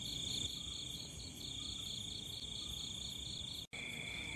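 Night chorus of crickets and other insects trilling steadily over a low background rumble. About three and a half seconds in, the sound drops out for an instant and comes back with a lower-pitched trill added.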